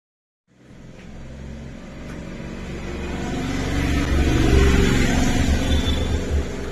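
A motor vehicle's engine running as it passes, cutting in abruptly about half a second in and growing louder, peaking past the middle, then easing off near the end.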